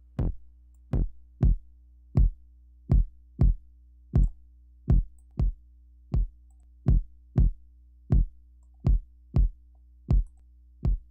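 Kick drum track playing on its own in a syncopated beat, deep thumps about one and a half a second, with a faint low drone between hits. It is being driven through the Sonimus Britson console-emulation plugin for extra saturation.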